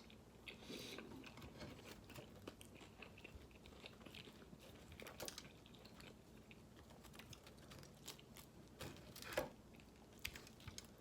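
A person chewing food close to the microphone, faint, with scattered small clicks and a louder click about nine seconds in.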